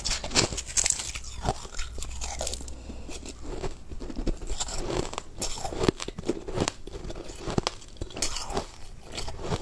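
Crushed ice being bitten and chewed close to the microphone: a quick, irregular run of crunches.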